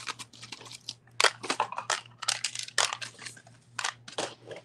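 Strands of 5 mm Czech glass beads clicking and rattling as they are pulled from plastic tubs and laid in a tray, in short irregular clusters of clicks and rustles.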